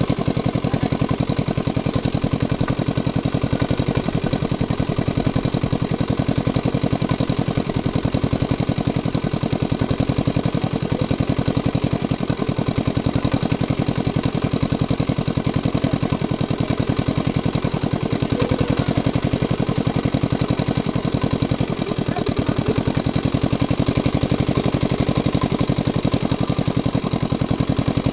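An engine running steadily at one even speed, with a fast, regular pulsing throughout.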